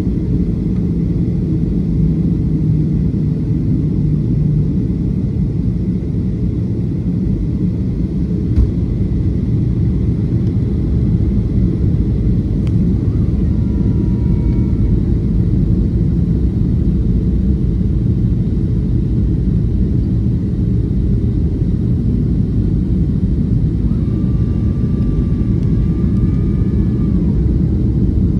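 Cabin noise inside a Boeing 737-500 on approach: the steady low roar of its CFM56-3 turbofan engines and the airflow over the fuselage. A few faint whining tones come and go briefly in the middle and again near the end.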